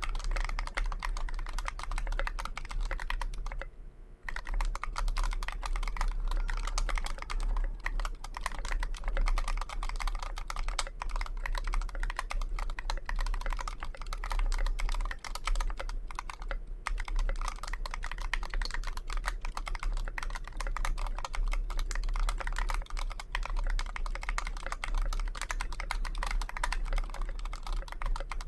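Continuous fast typing on a KBDfans Pebble mechanical keyboard with JWK FFF switches and SA-profile keycaps: a dense run of keystroke clacks, with a brief pause about four seconds in.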